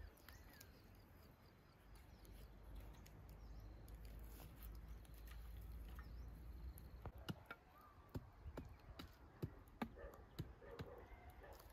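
Quiet background with a faint low rumble, then a series of scattered light clicks and taps over the last few seconds.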